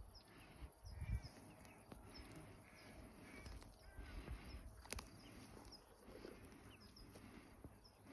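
Faint outdoor meadow ambience: distant birds calling, with short high chirps repeating, over a low rumble with a few bumps and one sharp click about five seconds in.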